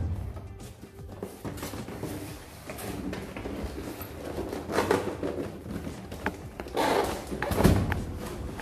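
Cardboard box being handled and tipped over: flaps scraping and rustling, with louder scraping about five seconds in and again near the end, the last with a low thud.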